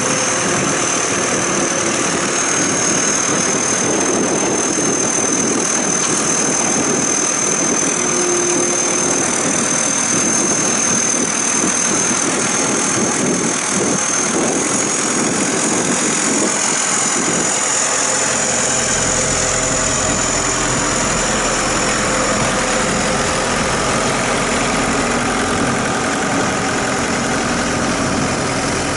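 Cummins turbo diesel engine of a Jack Rabbit JR400 bankout wagon idling steadily, with a thin high whine over the engine noise. A deeper low rumble comes in about two-thirds of the way through.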